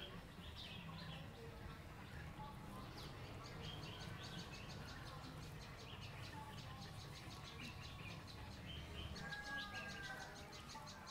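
Faint bird chirps and a rapid high trill, over a steady low hum.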